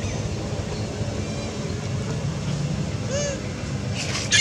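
Steady low engine drone of a vehicle running nearby, with a short high call about three seconds in and a sharp, loud high-pitched squeal at the very end.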